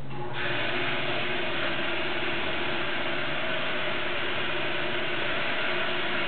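Machinery of an industrial washing plant running: a steady mechanical din with a constant hum, which gets louder about a third of a second in.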